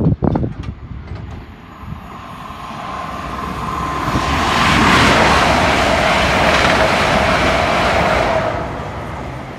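Passenger train passing at speed on the West Coast Main Line: a rush of wheel and air noise that builds, holds for several seconds and fades, with a whine that is lower in pitch as it goes by.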